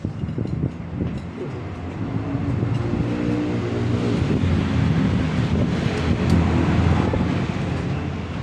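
A motor vehicle engine running, with a steady low hum that grows louder over several seconds and then eases off slightly near the end.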